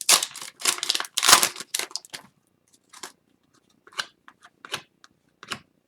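Crinkling and tearing of a foil hockey card pack wrapper being opened, a dense rustle over the first two seconds, followed by a few light, separate clicks as the cards are handled.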